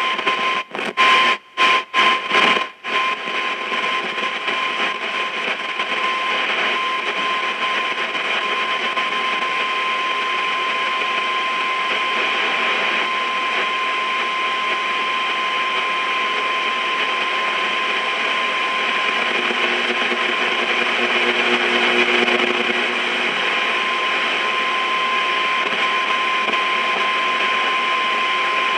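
Marconi 2004 seven-transistor radio tuned to an empty shortwave band, giving steady static hiss with a constant high whine of interference. The sound cuts out and back in several times in the first few seconds, and a faint humming tone comes through briefly about twenty seconds in.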